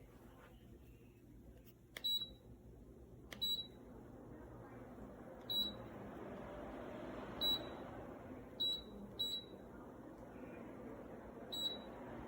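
Dreo Cruiser Pro tower fan beeping seven times, a short high beep with each button press, while the rush of its airflow grows louder after the first few beeps.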